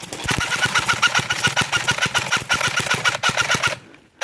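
Airsoft electric gun (AEG) firing a long full-auto burst: a fast, even mechanical rattle of the gearbox cycling and BBs going out. It cuts off suddenly near the end.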